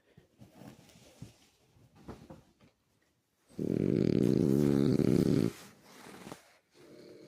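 Sleeping dog snoring: one long, loud snore lasting about two seconds, coming about halfway through, between stretches of faint, uneven breathing noises.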